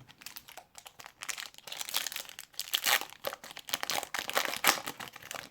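Foil wrapper of an O-Pee-Chee hockey card pack crinkling as it is handled, a dense run of irregular crackles.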